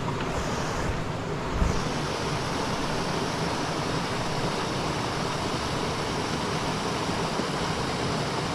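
Steady rush of a small mountain stream running over rocks. A brief low thump about a second and a half in.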